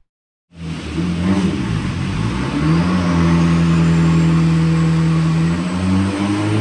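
Nissan Silvia S14's turbocharged engine revving and running hard under load, holding a steady pitch through the middle, then climbing in pitch near the end, with a thin rising whine above it.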